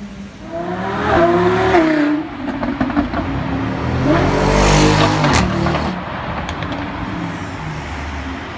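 A supercar's engine revving hard as it accelerates, its pitch climbing twice in quick runs, with a few sharp cracks around the second rev, then settling to a steadier, quieter engine note.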